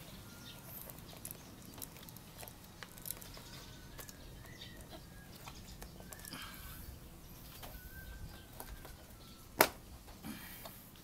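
Small clicks and knocks of hands working the plastic trim around a motorcycle's fuel tank, with one sharp click about nine and a half seconds in. Faint thin chirping tones come and go.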